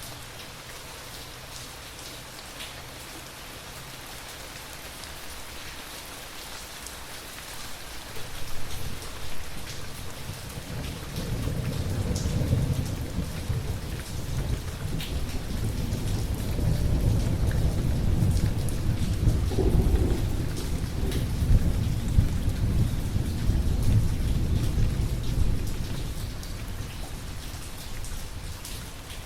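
Steady rain with scattered drops ticking. A long, deep roll of thunder comes in about a quarter of the way through, swells and rumbles on, then fades near the end.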